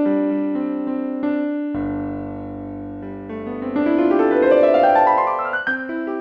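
Background piano music, with a deep bass note coming in about two seconds in and a rising run of notes climbing toward the end.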